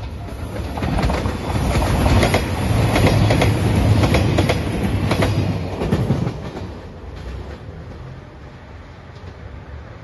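JR Shikoku 2700 series diesel express railcars passing at speed: the wheels clack over the rail joints over the steady running of the diesel engines. The sound grows loud about a second in and fades away after about six seconds.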